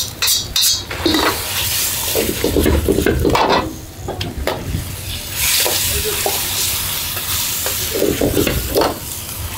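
Metal ladle scraping and clacking against a wok as pork and cabbage are stir-fried, with the food sizzling in hot oil. The clatter is sharpest near the start, and the sizzling grows louder and steadier about halfway through.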